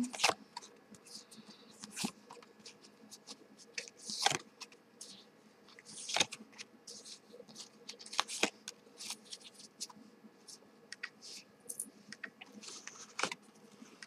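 Tarot cards being shuffled and fanned through by hand, with light snaps and slides every second or so and several sharper flicks, as cards are drawn and laid down.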